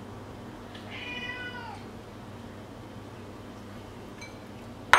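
A house cat meowing once, a single call of about a second that starts about a second in and drops in pitch at its end. A sharp knock comes at the very end.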